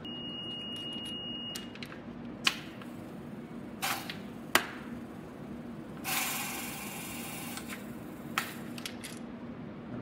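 Hand flaring tool being worked on steel tubing to form a bubble flare: several sharp metallic clicks, and a rasping noise lasting about three seconds from about six seconds in.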